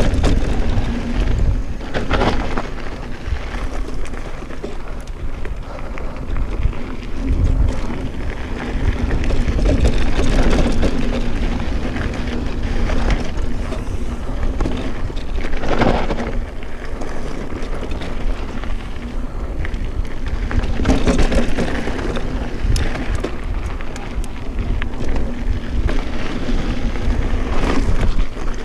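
Mountain bike on the move: wind buffets the microphone over the rumble and rattle of the bike and its tyres, with several louder knocks scattered through.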